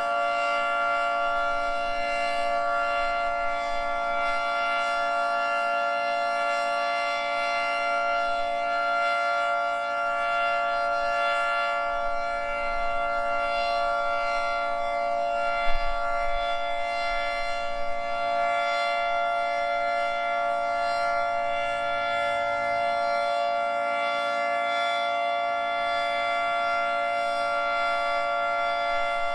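Federal Signal 2T22 dual-tone electromechanical siren sounding the steady Alert signal: a held chord of two pitches that neither rises nor falls.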